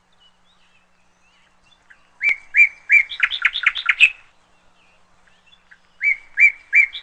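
Stock 'birds chirping' sound effect: a songbird sings the same short phrase twice, a few clear whistled notes followed by a quick trill. The first phrase comes about two seconds in and the second near the end.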